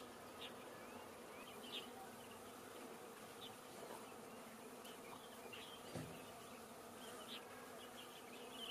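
Faint steady hum and hiss with scattered short, high chirps and one soft thump about six seconds in.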